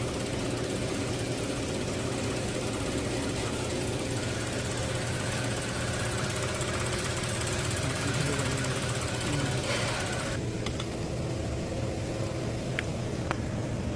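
Toyota Hilux engine running steadily at idle with a constant low hum; a hiss on top falls away about ten seconds in.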